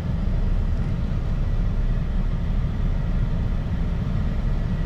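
Deep bass thumping from a truck's subwoofers, driven by a replacement 1600-watt amplifier and heard inside the cab as a steady heavy low rumble with almost no treble. The system is being tested after its speaker-box wiring was redone.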